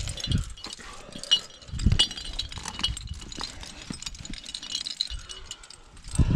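Carabiners and trad protection on a climbing harness clinking and rattling as the climber moves, with scuffs against the rock and a few dull knocks.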